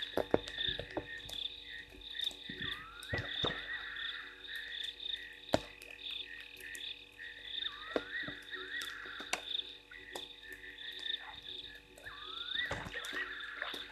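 Night chorus of frogs: a steady high trilling, with rising calls that repeat every few seconds, and scattered sharp ticks throughout.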